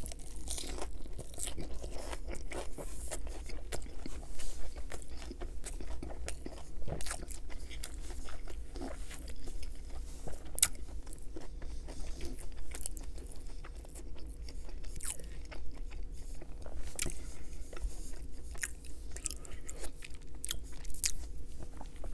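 Close-miked chewing of a tempura-battered fried sushi roll: crunchy bites with many small crackles of the fried batter throughout.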